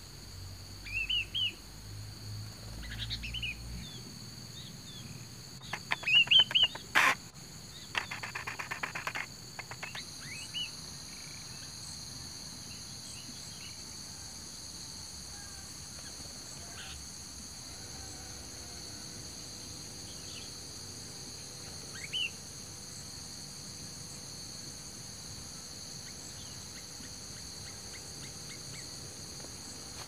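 Sooty-headed bulbuls giving short chirping calls, loudest in a quick cluster about six seconds in, with a sharp click and then a rapid rattling call; one more chirp comes later. A steady high-pitched drone runs underneath.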